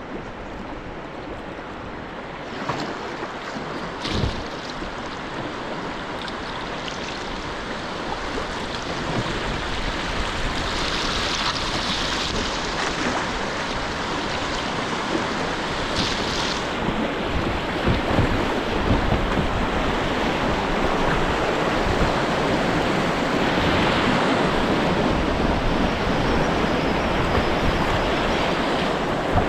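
River water rushing over shallow rapids, growing steadily louder, with a couple of short sharp splashes about three and four seconds in.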